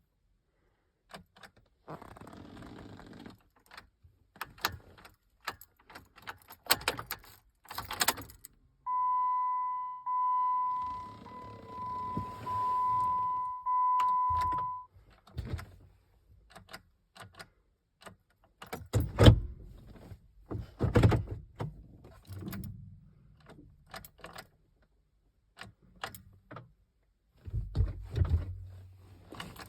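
Keys jangling and clicking at a 2012 Jeep Patriot that won't start, with the car's steady electronic warning chime sounding for about six seconds, followed by several heavy thumps. No engine catches.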